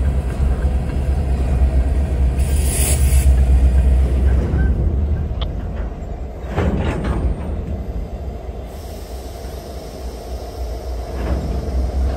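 Diesel-electric freight locomotives running with a steady low rumble, with a brief hiss about two and a half seconds in and a short burst of noise around seven seconds.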